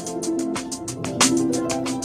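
Background music with a steady beat: quick, regular ticking percussion over a line of sustained pitched notes.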